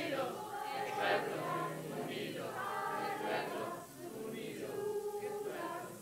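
A group of amateur voices chanting and vocalizing together as a participatory noise choir, many voices overlapping and swelling about once a second.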